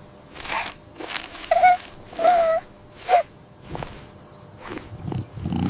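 A voice making a string of short wordless sounds, about seven in all: breathy, with a brief held pitch in some of them.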